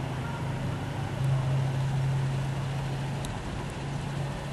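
Low, steady engine hum of a motor vehicle running, swelling about a second in and easing after about three seconds, with a faint click soon after.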